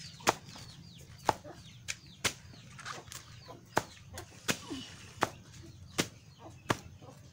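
A blade chopping through taro leaf stalks in sharp, single cuts, about ten chops at a steady pace of a little more than one a second. Faint chirping calls sound in the background.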